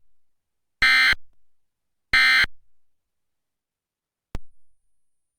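Emergency Alert System End-of-Message (EOM) data bursts: the last two of three short, identical rasping digital bursts about a second and a bit apart, each about a third of a second long, marking the end of the test alert. A single sharp click follows about four seconds in.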